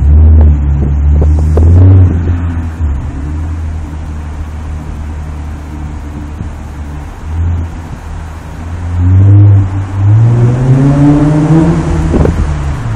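Nissan Altima V6 engine through an aftermarket Greddy exhaust, loud as the car pulls away. It settles to a steadier drone, then revs up again from about nine seconds in, with the exhaust note rising in pitch.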